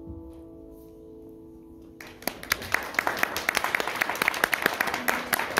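The song's last piano chord rings out and fades. About two seconds in, an audience bursts into applause, which grows and carries on.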